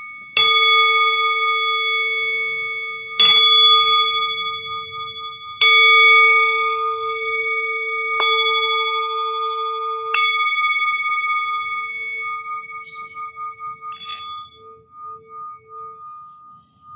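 Metal singing bowl struck five times, about every two and a half seconds, each strike ringing on in the same few long tones. The ring wavers as it fades out after the last strike, with a light tap near the end.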